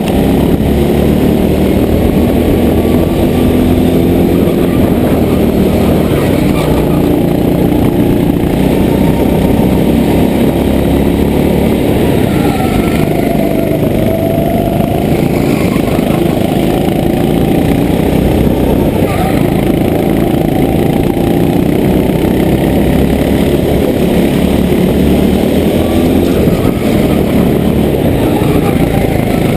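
Go-kart engine running hard on track, its pitch rising and falling as the throttle opens and closes through the corners.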